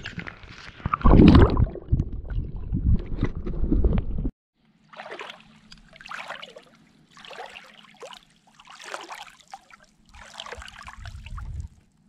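Water sloshing and gurgling loudly against a camera dipped at the surface while a peacock bass is released, loudest about a second in, then cut off abruptly. After that, softer water swishes come about every second and a half over a faint steady hum.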